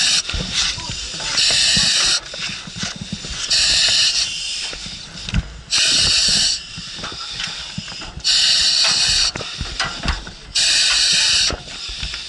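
Firefighter breathing through a self-contained breathing apparatus mask: a loud hiss of air through the regulator with each breath, about every two and a half seconds, five times, with soft low knocks between the breaths.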